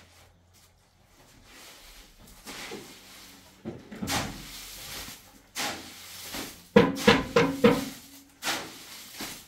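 Hard knocks and scrapes from laying stone floor tiles in mortar, with a quick run of about five sharp, ringing knocks near the end.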